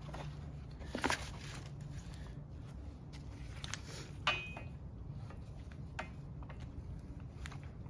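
Scattered light knocks and clicks of strut suspension parts being handled, with one short metallic ring about four seconds in, over a steady low hum.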